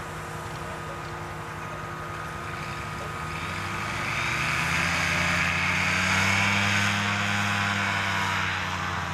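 A small propeller aircraft engine passes by, its drone swelling about four seconds in and fading again near the end, over a steady distant engine hum.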